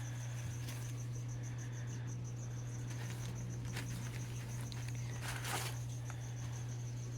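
A cricket chirping in a fast, even, high-pitched pulse over a steady low hum, with a short crinkle of plastic about five and a half seconds in.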